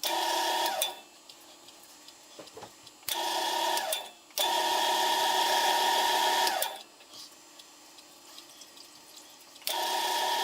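Wood lathe running with a steady whine while a wire burns rings into the spinning wood. The whine cuts in and out abruptly several times, with quiet gaps of a second or more between.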